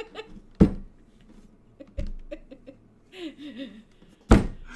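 People laughing, mostly quiet giggles and wheezing breaths between short bursts. Two loud sharp thumps, one about half a second in and one near the end, are the loudest sounds.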